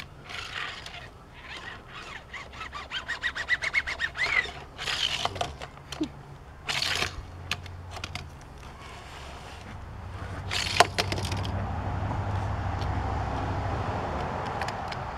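Matchbox diecast Infiniti G37 Coupe toy car rolling along plastic track, its wheels clicking faster with a rising whir as it gathers speed. A few sharp knocks come in the middle, then a steadier rolling rumble over the last few seconds.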